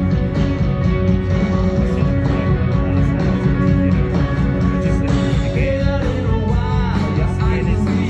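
Rock band playing live through a large outdoor stage PA during a sound check, with electric guitar, bass and drums heard across an open park.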